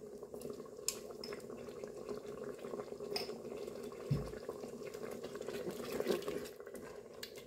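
Tomato sauce with tripe simmering and bubbling in a Moulinex Cookeo electric pressure cooker's pot, cooking on high heat. A low knock comes about four seconds in, and a wooden spoon scrapes through the sauce near the end.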